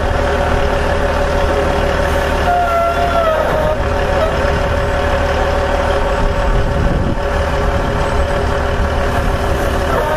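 An engine idling steadily, an even drone with no change in speed.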